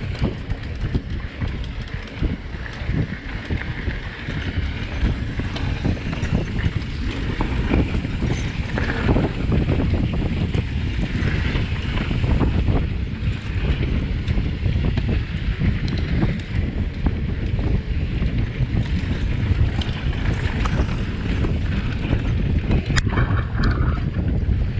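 Wind buffeting the microphone while a mountain bike rolls fast down a dirt singletrack, its tyres rumbling over the ground, with frequent small clicks and knocks as the bike rattles over bumps.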